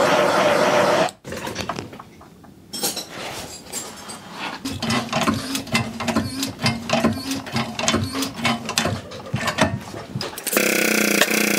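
A loud steady blowing sound cuts off about a second in. Then come irregular metallic clicks and rattles as a jet-ski crankshaft half is handled and seated on steel blocks under a hydraulic press ram, with a faint low hum from about halfway. Near the end a motor starts and runs with a steady hum and regular ticks, about two and a half a second.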